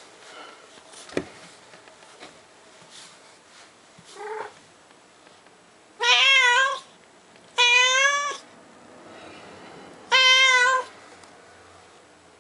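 Domestic cat meowing: a faint short mew about four seconds in, then three loud, drawn-out, wavering meows, each lasting under a second.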